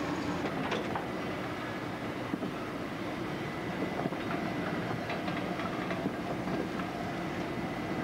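Vintage railway passenger coaches rolling past at close range: a steady rumble of wheels on rail with scattered clicks and knocks as the wheels pass over the rail joints.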